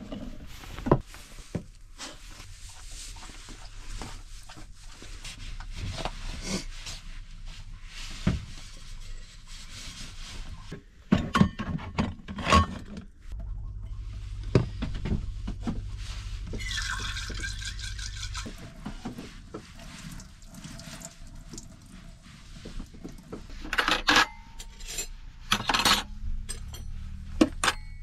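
Dishes and cutlery clinking and gear being knocked about and packed away while a camper van's kitchen is cleaned out, with bits of running water. A low hum runs for several seconds midway.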